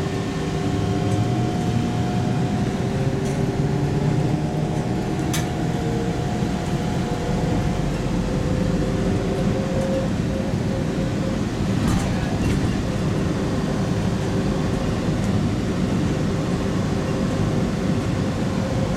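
Automated airport people-mover tram running along its guideway, heard from inside the car: a steady rumble with a few held motor tones, one of which fades out about halfway through. Two sharp clicks stand out, at about five and twelve seconds in.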